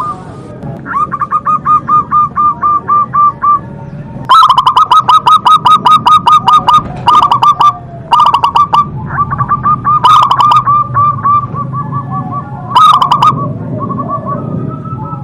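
Zebra doves (perkutut) cooing: runs of quick, short repeated notes, several a second, in bouts of one to three seconds with brief pauses between, louder from about four seconds in.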